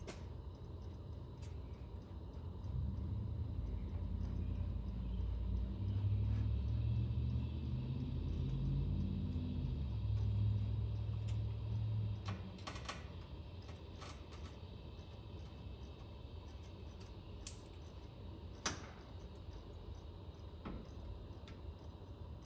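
Low mechanical hum for about ten seconds, its pitch stepping up and down, then a few scattered light metallic clicks and clinks of tools and truck parts.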